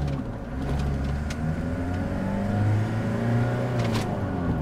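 Toyota Toyoace's 3L four-cylinder diesel engine heard from inside the cab while the truck drives and accelerates, its pitch dipping and climbing again a couple of times, with light clicks and rattles.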